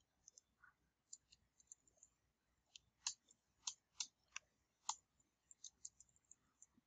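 Faint, irregular taps of computer keyboard keystrokes, with a few louder clicks around the middle.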